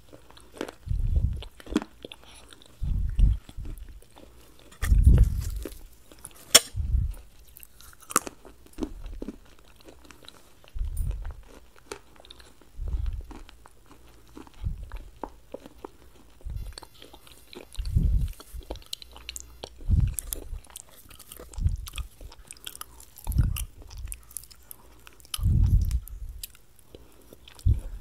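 Close-miked chewing and crunching of crisp papdi chaat, eaten off a spoon: crackly crunches over a low swell of chewing about every two seconds.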